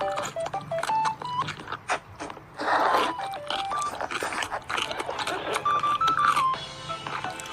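Background music with a simple melody of short, beep-like notes that step up and down in pitch, along with scattered short clicks and a brief rush of noise about three seconds in.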